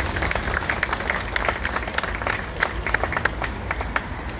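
Audience applauding: many quick, overlapping hand claps.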